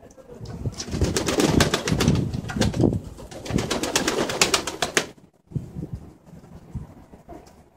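Domestic pigeons beating their wings in rapid flurries for about five seconds as they shake off water after a bath, one taking off; quieter, sparser sounds follow.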